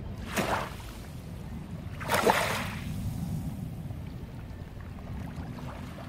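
Small waves lapping at the shore's edge: two short splashing washes, the second louder, over a steady low rumble.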